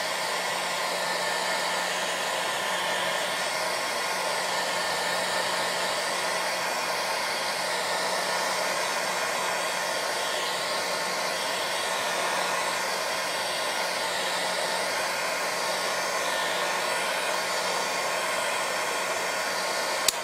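Handheld craft heat tool running steadily, blowing hot air with a constant motor hum, drying crackle medium and paint to speed up the crackling. It cuts off suddenly at the very end.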